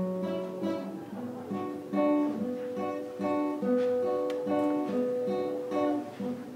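Acoustic guitar played live in a steady rhythm, plucking and strumming chords.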